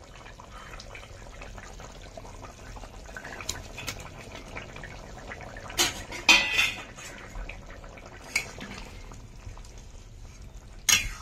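Metal utensil clinking and scraping against a cooking pot a handful of times as fried rui fish pieces go into the curry, the loudest clinks about six seconds in and just before the end, over the steady bubbling of the simmering curry.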